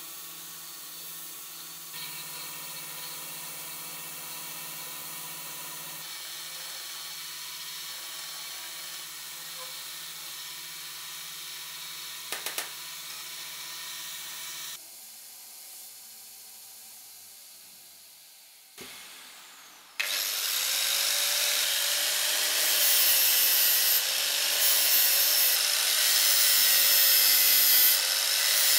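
Electric power tool motor running steadily, then winding down about fifteen seconds in. From about twenty seconds a loud abrasive grinding against metal parts, its pitch wavering as the pressure changes.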